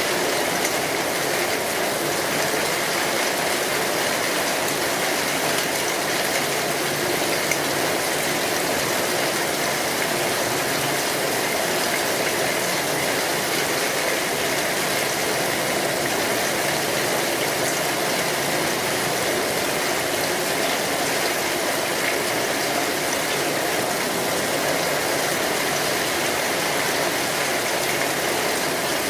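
Steady, unbroken rain falling on an umbrella.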